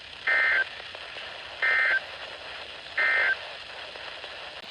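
Three short, identical buzzy bursts of EAS/SAME digital data tones from a NOAA Weather Radio broadcast, about a second and a half apart, over radio static hiss. Their shortness and their place right after the warning text fit the end-of-message code that closes a severe thunderstorm warning.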